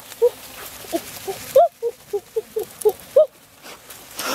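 A woman's short, high vocal squeaks and gasps, about ten in quick succession.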